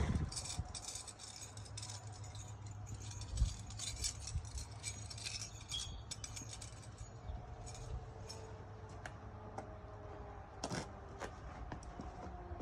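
Light clinking and rattling of small metal hardware being handled, such as construction screws and a driver bit: a flurry of small clicks over the first few seconds, then a few scattered single clicks.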